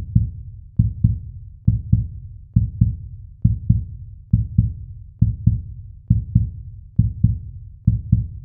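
Heartbeat sound effect: paired low thumps, lub-dub, repeating steadily a little faster than once a second.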